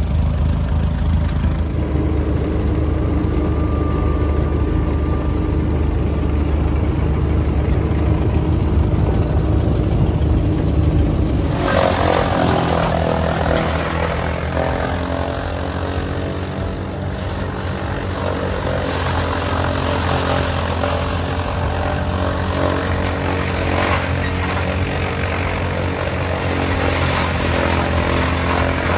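A Massey-Harris tractor engine runs steadily, driving a 1940s International silo filler by a flat belt. About a third of the way through, corn stalks start going through the cutter-blower: a loud, dense chopping and blowing of chaff rises over the engine, which settles under the load.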